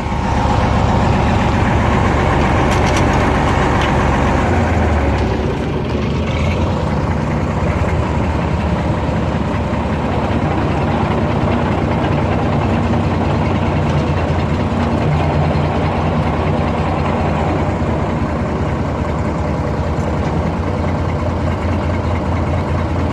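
Combine's diesel engine running steadily under way, its note shifting about five seconds in.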